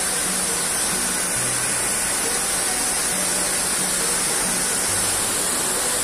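Steady, even rush of water from a tall waterfall falling down a rock cliff.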